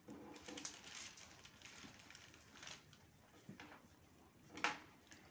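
Quiet room tone with faint scattered small clicks and rustles, and one sharper click about four and a half seconds in.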